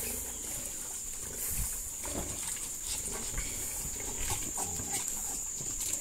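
A group of pigs feeding at a trough of whey, with scattered soft grunts, slurps and snuffles.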